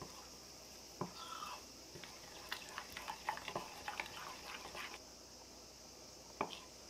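Metal spoon clinking and scraping against a glass bowl while stirring thick rice-flour batter: a run of light clicks through the middle and one sharper clink near the end.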